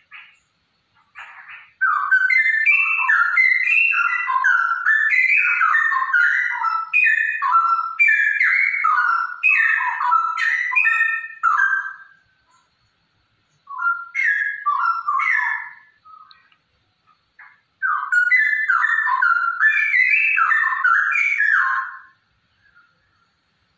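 Female straw-headed bulbul (cucak rowo) singing in rich, bubbling warbled phrases: one long bout of about ten seconds, then two shorter bouts after brief pauses.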